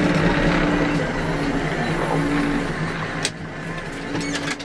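New Holland LB 115.B backhoe loader's diesel engine running at low speed, heard from the cab as a steady drone. It grows quieter about three seconds in, and a few sharp clicks come near the end.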